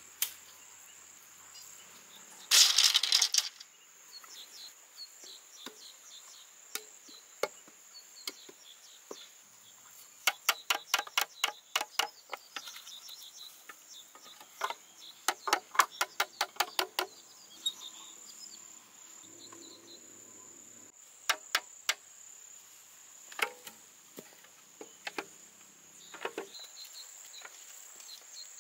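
Steady high chirring of insects, with runs of quick sharp knocks, about five a second, from bamboo being worked by hand, and a louder one-second clatter near the start.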